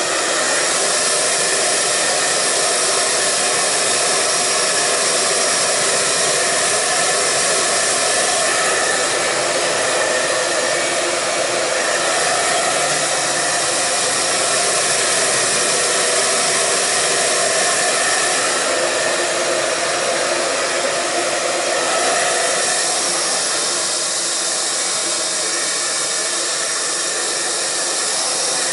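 Handheld hair dryer running steadily as it is moved over the hair, its sound shifting a little as the nozzle is turned.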